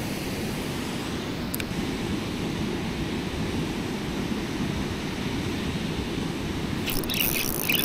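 Steady rush of water pouring out of a dam's spillway gates into the tailwater. A short patter of clicks comes near the end.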